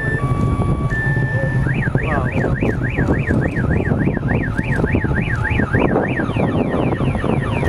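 A car alarm cycles through its tones: first a two-tone hi-lo, then an up-and-down warble about three times a second starting about a second and a half in, then faster sweeps near the end. Under it is the loud, crackling rumble of the Falcon Heavy rocket's engines.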